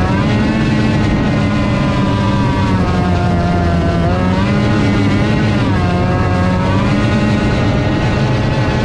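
Two-cylinder racing outboard motor running hard, heard close up from on board, its pitch dropping and climbing back a few times through a turn before holding steady near the end. A steady rush of water spray and wind runs under it.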